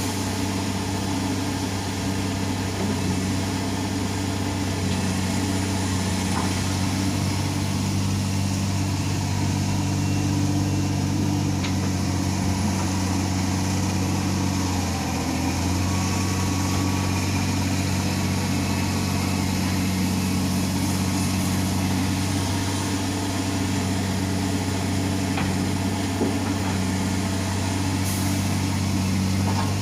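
Komatsu excavator's diesel engine running at a steady, even pitch throughout, a constant low drone with no clear revving.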